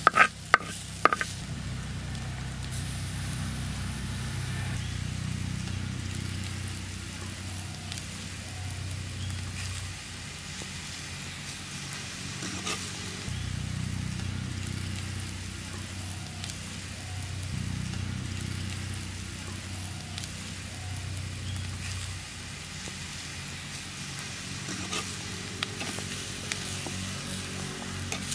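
A spoon stirs and scrapes a mix of green chillies, onions and boiled eggs in a clay pot, with a few clinks against the pot, over a steady low rumble.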